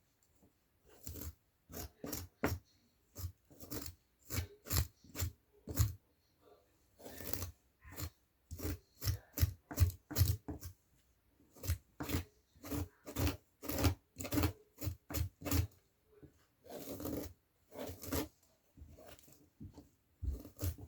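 A wide-toothed comb being pulled through a Barbie doll's tangled synthetic hair, short rasping strokes repeated roughly one or two a second in runs with brief pauses.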